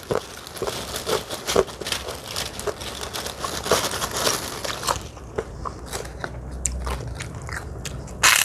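Kerupuk (Indonesian deep-fried crackers) being bitten and chewed close to the microphone. Dense crackling crunches for about five seconds, then sparser ones, with one sharp loud crunch near the end.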